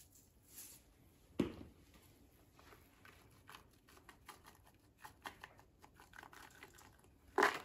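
Plastic spice shakers being shaken over a stainless steel pot: faint ticking and rattling, with a sharper knock about a second and a half in and another near the end.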